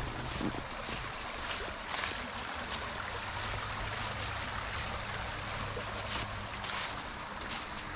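Small woodland stream running and babbling over shallow riffles, with footsteps rustling through dry fallen leaves at irregular intervals.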